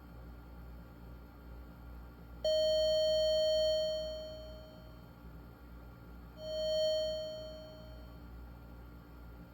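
Commodore 64's SID sound chip playing test tones through a small speaker as a test program steps through its attack and decay settings. One tone starts abruptly, holds about a second and fades out; a second tone at the same pitch swells up quickly and fades. The owner judges the SID to be sounding pretty good.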